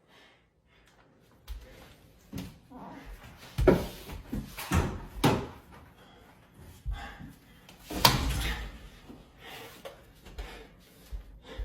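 A string of knocks and thumps, with the loudest bangs about a third of the way in, near the middle, and about two-thirds through.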